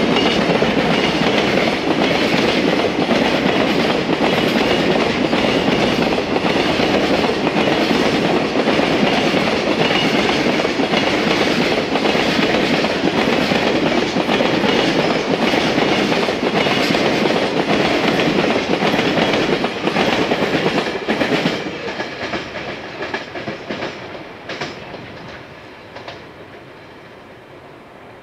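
Container freight train's wagons running past, a loud rumble with a steady clickety-clack of wheels over the rail joints. About 21 seconds in the sound starts to fade as the last wagons draw away, leaving a faint rumble.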